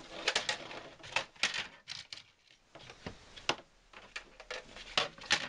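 Orange plastic Hot Wheels track being handled as a loop section is pulled off the layout: a run of irregular plastic clicks and clatter in the first two seconds, then a few single knocks.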